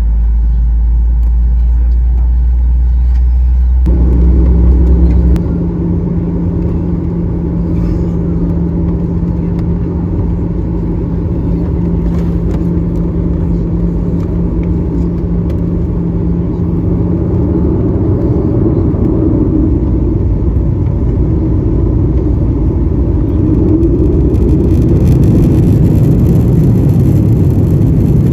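Continuous rumble and drone of a Boeing 737-900ER's jet engines and airflow, heard from inside the passenger cabin. The sound shifts about four seconds in, when a steady hum joins the drone, and it grows a little louder near the end.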